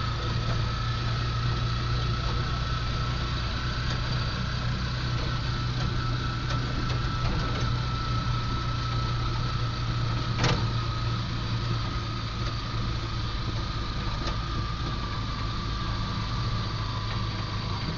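Engine and road noise inside the cabin of a moving vehicle: a steady low drone with a thin, high, steady whine above it. A single sharp click about ten seconds in.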